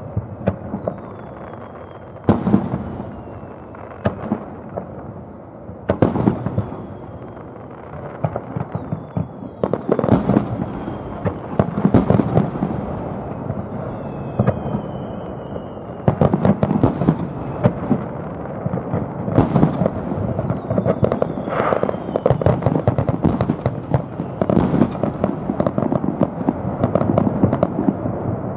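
Aerial fireworks finale: shells bursting in a rapid barrage of booms and crackling, with whistling shells among them. It grows denser about ten seconds in and again past the middle.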